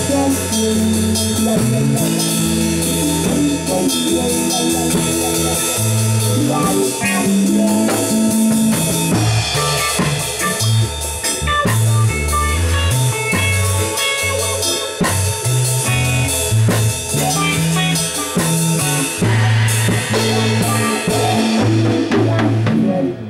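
A live rock band playing: drum kit, bass guitar and electric guitar, the bass moving in a stepping line under the drums. The playing cuts off briefly right at the end.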